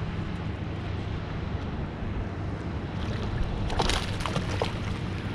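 Steady low wind noise on the microphone over open water, with a short splashing of a hooked fish thrashing at the surface about four seconds in.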